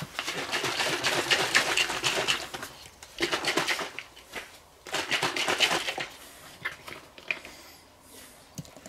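Water sloshing and rattling in a plastic squeeze bottle of barbecue sauce, shaken hard to rinse the last sauce out, in three quick bouts; it stops about six seconds in.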